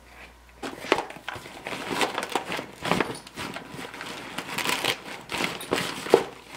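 Fabric tool bag being opened and spread out by hand: irregular rustling and crinkling, with a sharper knock near the end.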